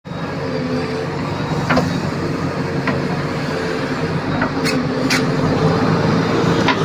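JCB backhoe loader's diesel engine running steadily at constant speed, with a handful of short sharp knocks over it.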